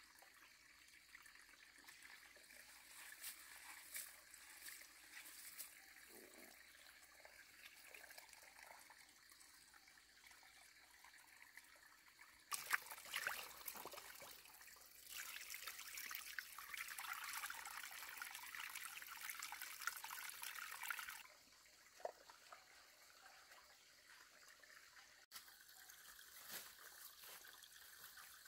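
Faint running water trickling, getting louder about twelve seconds in and dropping back about twenty-one seconds in.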